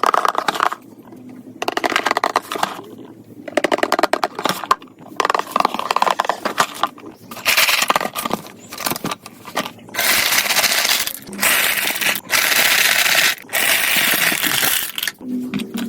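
Marbles rolling and clattering through a plastic building-block marble run: bursts of quick rattling clicks, then longer stretches of steady rolling. Music starts near the end.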